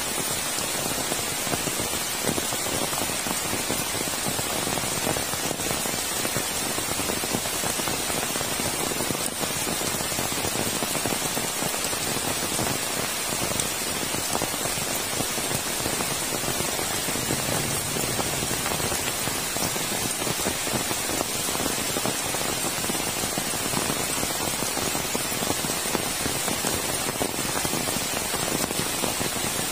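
Heavy tropical rain falling steadily, a dense, even hiss of countless drops.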